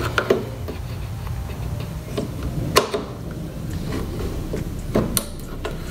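Plastic grille retaining tabs being pried loose with a trim removal tool: a few sharp clicks and snaps, the loudest about three seconds in.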